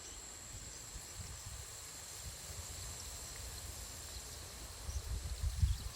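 Outdoor ambience: wind buffeting the microphone, stronger near the end, under a steady high-pitched insect drone and a few faint bird chirps.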